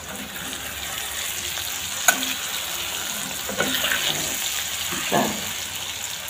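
Dry fish, onions and curry leaves sizzling steadily in hot oil in a pan while being stirred, with a few short scrapes of the spoon against the pan about two, four and five seconds in.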